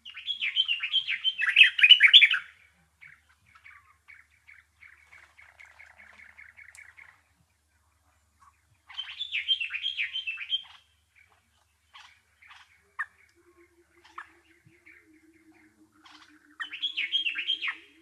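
A songbird singing three bursts of rapid chattering, warbling notes, near the start, in the middle and at the end, with softer runs of fast ticking notes between them. A faint low pulsed trill runs underneath in the second half.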